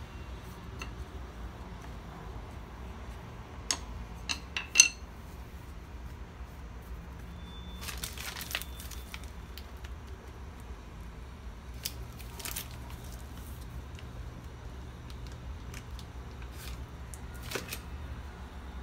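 A few sharp knocks of a wooden rolling pin being handled and set down on a countertop, then the crinkle and rustle of a plastic piping bag squeezed as doce de leite is piped onto the dough.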